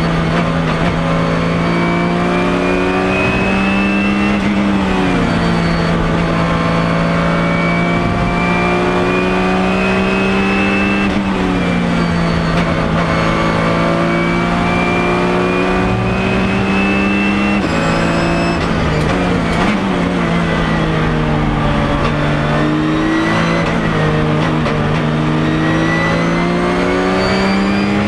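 Porsche 997 GT3 Cup's naturally aspirated flat-six race engine at full throttle, heard from inside the cockpit. The revs climb for several seconds at a time, then dip and pick up again about five times as the car is driven through the corners.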